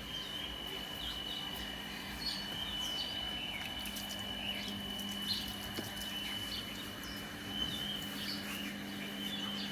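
Birds chirping in short, scattered calls over a steady high-pitched tone and a faint low hum.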